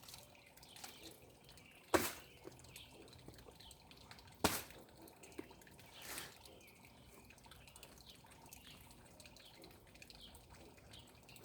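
Faint water dripping and trickling, with two sharp clicks about two and four and a half seconds in.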